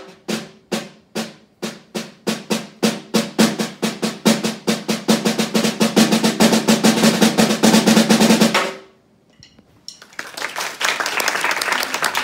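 Snare drum played with sticks: single strokes that speed up until they merge into a continuous roll, which stops about eight and a half seconds in. After a short pause, audience applause begins near the end.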